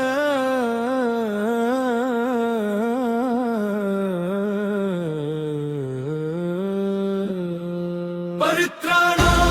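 A single voice holds one long chanted note in a devotional style, with ornamented wavering glides, slowly sinking in pitch. Near the end a sudden hit and a brief gap bring in the full backing track with heavy bass.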